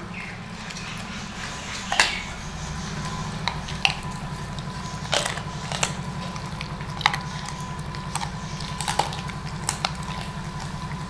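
Rottweiler chewing a chicken foot: a run of irregular sharp crunches and cracks about a second apart, over a steady low hum.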